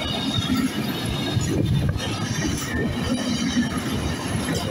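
Intermodal freight wagons carrying semitrailers rolling past close by, with a steady rumble and clatter of wheels on the rails and a faint high squeal from the wheels.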